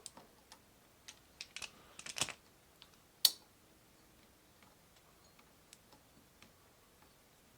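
Small metal parts and hand tools clicking and tapping while the horn plate of a Jeep steering wheel is fitted: a quick run of light clicks, one sharp louder click about three seconds in, then only a few faint ticks.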